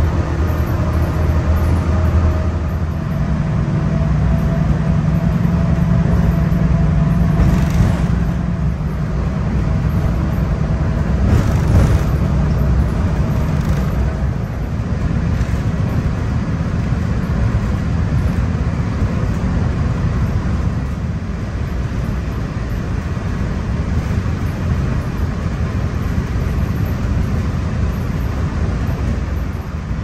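Walt Disney World Mark VI monorail running, heard from inside the cabin: a steady drive hum and whine with several held tones through the first half, fading about halfway through, over a constant rumble of the train on its beam. A brief clatter comes about twelve seconds in.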